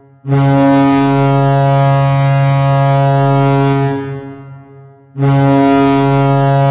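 Hockey goal horn sounding two long blasts: the first starts just after the beginning, holds steady for about four seconds and dies away, and the second starts about five seconds in.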